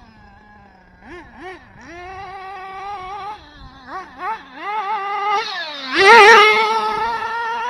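Kyosho Inferno ST nitro RC truck's small Dynamite .26 glow engine with an aftermarket tuned pipe, revving in short throttle blips and then held at high revs. It gets much louder about six seconds in as the truck comes up close.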